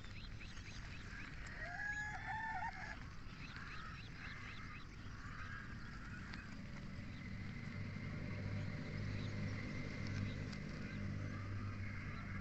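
A rooster crows once about two seconds in, amid small birds chirping and a steady low hum.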